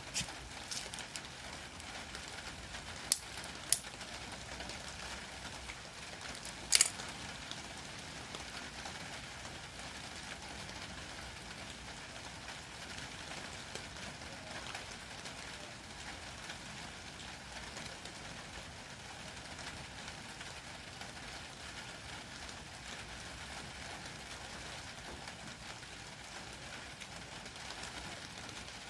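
Steady patter of rain, with three sharp clicks or knocks in the first seven seconds.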